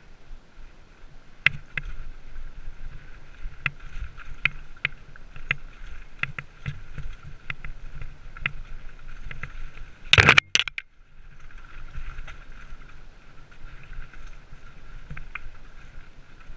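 Downhill mountain bike rattling over a rocky dirt trail: a steady rattle with frequent sharp knocks as the wheels hit stones, and one loud burst of clatter about ten seconds in.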